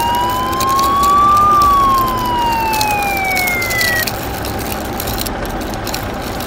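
Electronic siren wail, one slow rise in pitch and then a fall, cutting off about four seconds in. Under it a steady gritty noise with small clicks from the die-cast toy fire truck's plastic wheels rolling on rough concrete.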